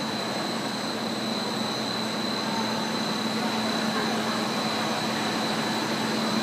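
Three-layer blown film extrusion line running: a steady machine noise with a constant hum and a thin, high, steady whine above it.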